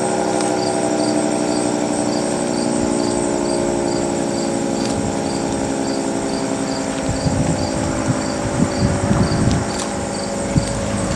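Federal Signal 3T22 outdoor warning siren sounding a steady alert chord of several tones, the pitch held level during a test. Low rumbling gusts come in during the second half.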